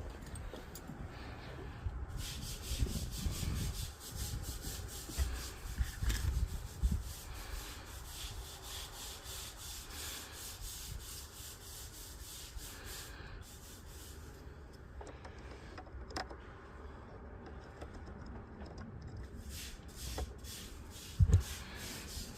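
Rubbing and scraping handling noises with scattered low thumps, and one sharp knock near the end.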